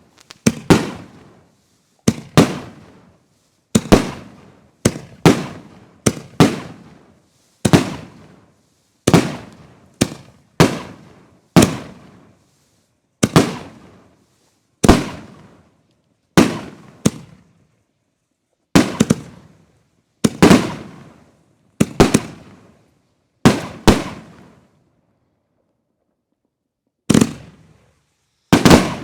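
A large consumer firework cake built from fused canister shells, firing shell after shell: sharp booms about once a second, each trailing off as it fades. There is a pause of a couple of seconds near the end.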